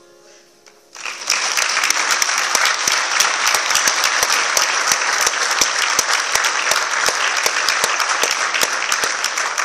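Audience applauding, breaking out about a second in and going on as dense, steady clapping.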